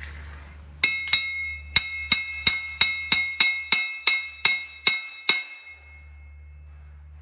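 A hammer striking steel, about a dozen ringing blows in quick succession. The ring dies away after the last blow. The blows are knocking the axle shaft loose from the wheel hub, with a nut threaded back on to protect the threads.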